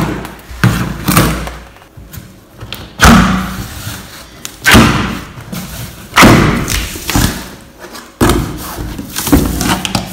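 A cardboard bike shipping box being cut open and handled: plastic packing straps cut and pulled off, and the cardboard knocked and opened, giving a series of sudden thuds a second or two apart.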